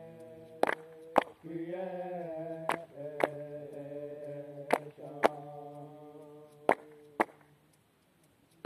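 Voices chanting together in long held, sliding notes, with a pair of sharp knocks about every two seconds keeping time; the chant fades out near the end.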